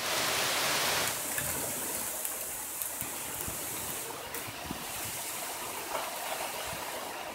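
Severe thunderstorm winds rushing through leafy trees: a steady rush of noise, loudest in the first second and then easing a little.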